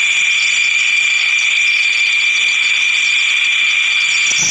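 Dassault Rafale fighter jet's engines whining while it taxis on a runway: a loud, steady, high-pitched whine with a hiss.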